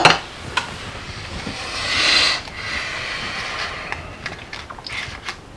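Rustling and scattered light clicks of items being handled on a wooden table, with a longer rustle swelling about two seconds in.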